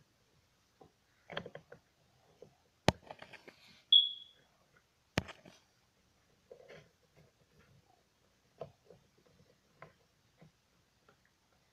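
Handling noise from plastic Littlest Pet Shop toy figures being moved close to the microphone: scattered soft knocks and rubs, two sharp clicks about three and five seconds in, and a brief high squeak between them.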